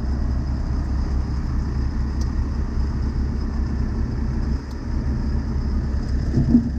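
Heavy diesel engine idling steadily, with a faint steady high whine above it.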